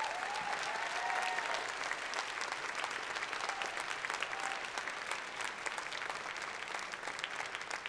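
Theatre audience applauding, a dense steady clapping, with a few whoops and cheers over it in the first couple of seconds.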